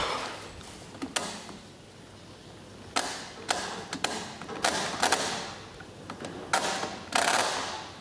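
Ariston LS 603 dishwasher's programme selector knob being turned by hand, its mechanical timer clicking through the settings: about eight sharp clicks at uneven intervals, each fading briefly.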